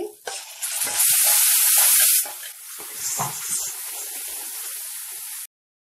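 Yogurt-based gravy hitting hot oil with curry leaves, green chillies and garlic: a loud sizzle for about a second, settling to a steady quieter sizzle while a spatula stirs it. The sound cuts off suddenly near the end.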